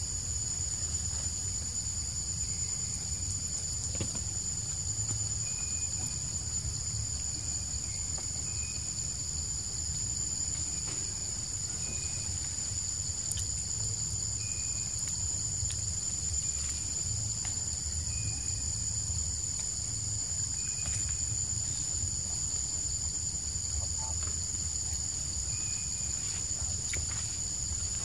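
Steady, high-pitched drone of forest insects, with short high chirps repeating every second or few seconds and a low rumble underneath.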